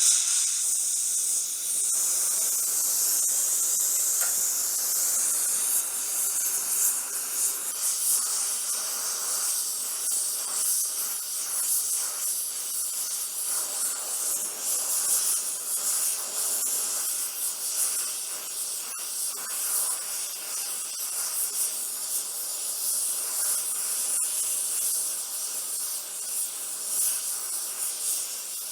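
Gas brazing torch lit and burning with a steady loud hiss, starting abruptly, as the broken cast iron is heated for a braze fill. There are a few faint ticks now and then.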